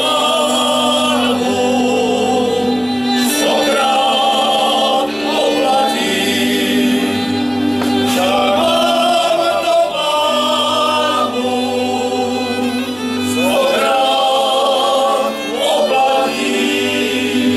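A men's folk choir singing a Moravian folk song in harmony, in phrases a few seconds long, with lower voices holding long steady notes under a wavering melody.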